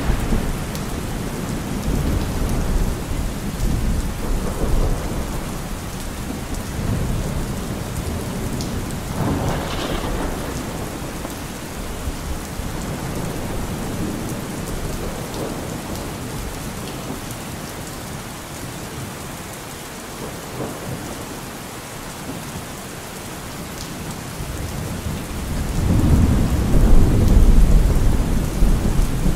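Steady heavy rain with rolling thunder. A low rumble fades just after the start, another briefly swells about ten seconds in, and a louder rumble builds near the end.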